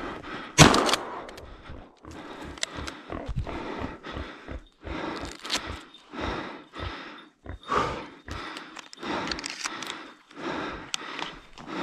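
A single loud shotgun shot about half a second in, then footsteps crunching through snow at a walking pace.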